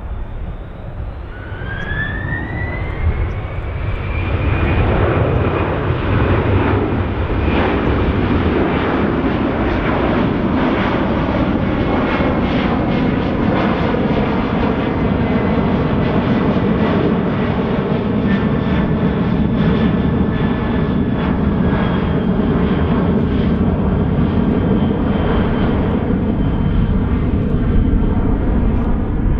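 Airbus A330-300's General Electric CF6-80E1 turbofans spooling up to go-around thrust: a rising whine over the first few seconds, then loud, steady jet engine noise as the airliner climbs away overhead.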